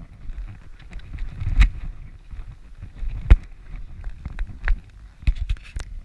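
Horse cantering on a sand arena heard through the rider's body-worn camera: irregular thudding of hoofbeats and jolts of the camera, with two heavy thumps about one and a half and three seconds in.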